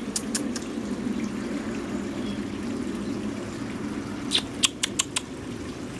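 Garden fountain water running steadily. Over it come a few short sharp clicks, two or three at the very start and four louder ones in quick succession about four to five seconds in.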